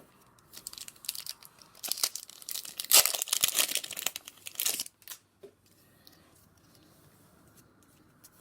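A trading-card booster pack's wrapper being torn open and crinkled, a run of crackly tearing for about four seconds, loudest in the middle, then stopping.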